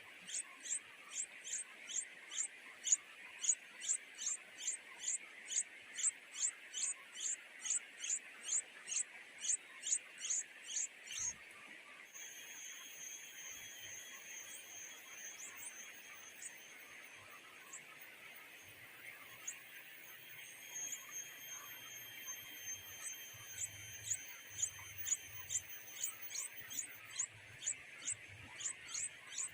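A bird making short, sharp, high chirps about three times a second over a steady high hiss. The chirping stops about eleven seconds in, leaving steady high-pitched tones, and starts again about two-thirds of the way through.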